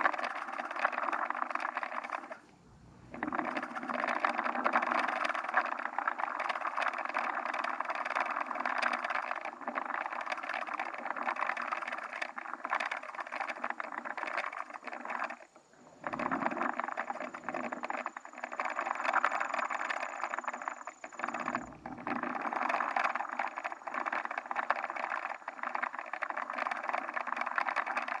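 Pulleys of a homemade camera trolley rolling along a line, a steady, clunky rattling run that stops for a moment a few times.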